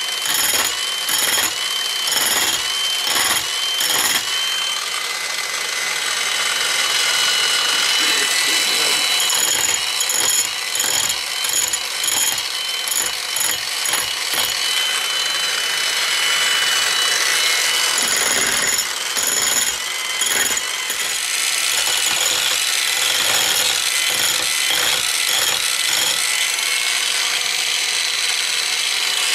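Slow-speed grinder with a diamond wheel grinding concrete, running with a steady high whine. In two stretches, near the start and again about a third of the way in, the sound pulses about twice a second as the wheel bites.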